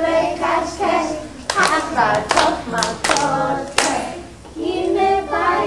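Group of young children singing a song together, breaking off about a second and a half in for a run of sharp hand claps, then singing again near the end.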